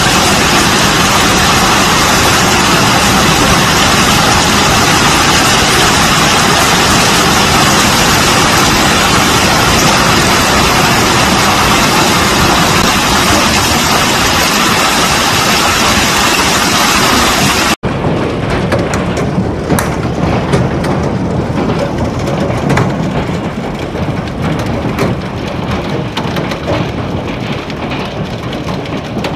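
Hailstorm: hail and rain pelting the ground as a dense, steady roar. About 18 s in, the sound changes to a thinner patter of separate ticks as hailstones strike a concrete driveway and a shingle roof.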